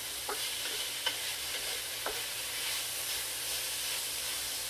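Bite-sized chicken pieces frying in a skillet: a steady sizzle with a few brief clicks. The pan juices have cooked off and the chicken is browning.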